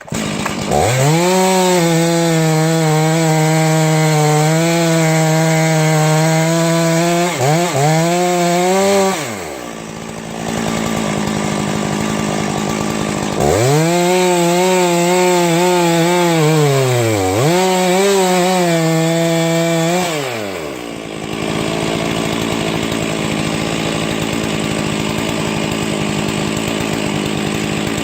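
Two-stroke chainsaw run up to full throttle twice, held high for about nine and then seven seconds, its pitch sagging briefly now and then as the chain works into Douglas fir, dropping back to a lower speed between the runs and near the end.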